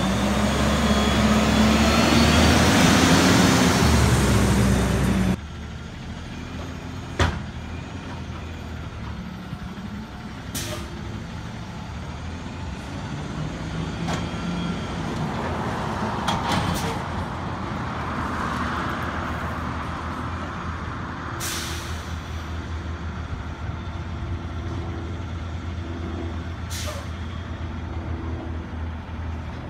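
CNG Autocar garbage truck with a Curotto-Can arm: for about five seconds the engine revs loudly under hydraulic load as the arm works a cart, then the sound drops abruptly to a steadier, more distant engine rumble. The rumble swells with a rising whine about halfway through. Short sharp air hisses, typical of air brakes, come about five times.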